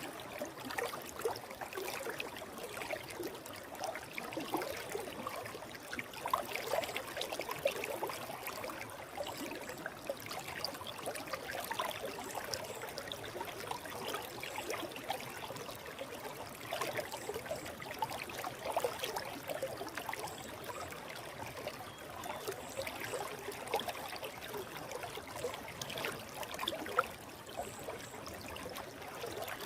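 Shallow forest stream flowing and babbling, a steady wash of water with many small splashes and gurgles.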